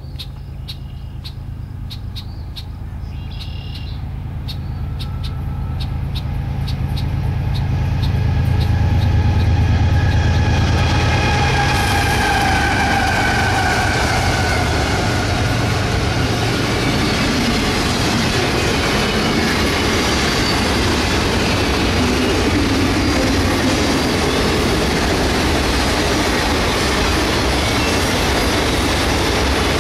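Union Pacific freight train passing close by on a bridge. The diesel locomotives' engine drone builds for about ten seconds and a whine drops in pitch as they go by. Then autorack cars roll past with a steady rumble and wheel noise.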